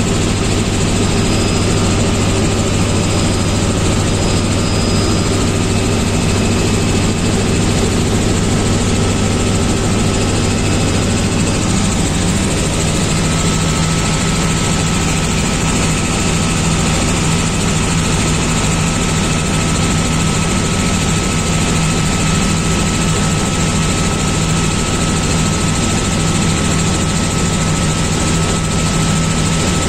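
Light helicopter's engine and rotor noise heard inside the cabin in flight: a loud, steady drone with a slight shift in its low tones about twelve seconds in.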